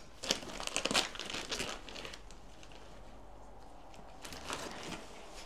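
Gloved hands rummaging through a veterinary kit bag, with crinkling of plastic packaging and rustling. The rustling is busiest in the first two seconds and comes again briefly about four and a half seconds in.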